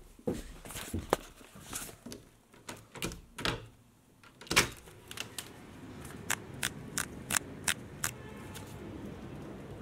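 Clicks and knocks of a tall window being handled and opened onto a balcony, with the loudest knock about four and a half seconds in; after it, a steady outdoor background with a quick series of sharp clicks.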